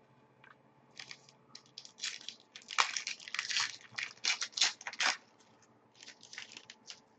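A foil trading-card pack wrapper being crinkled and torn open, a quick run of crackling rustles with a short second burst near the end.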